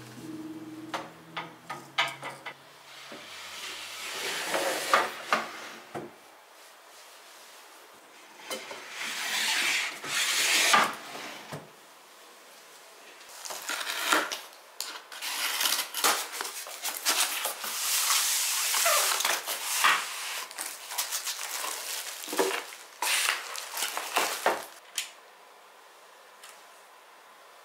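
Flat-pack drawer unit being unboxed and handled: a cardboard box opened and slid about, with rustling and scraping swells and scattered knocks and clicks of the parts.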